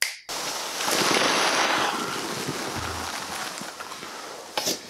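A mass of foam Nerf darts pouring into a suitcase: a dense pattering cascade, loudest about a second in, that slowly tails off, with a sharp knock near the end.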